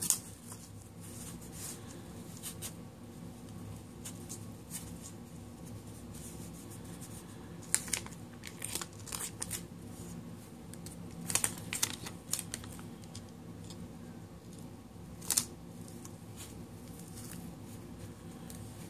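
Clear tape being pulled, torn and pressed onto cardboard duct tape cores, giving scattered crackles and sharp snaps, most of them in the middle of the stretch, over a steady low hum.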